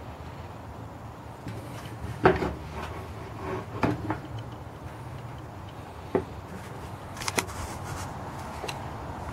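A few scattered knocks and clatters from plastic bumper cover parts being handled, over a low steady background rumble; the sharpest knock comes about two seconds in.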